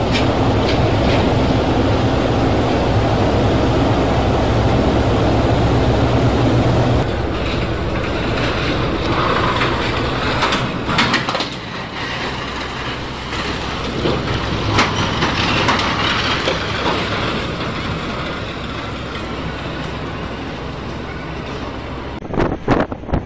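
Steady low marine engine rumble with heavy wind and water noise, then, after a change about seven seconds in, rougher noise with several sharp knocks and scrapes as a tugboat is pressed and tipped against a container ship's steel hull.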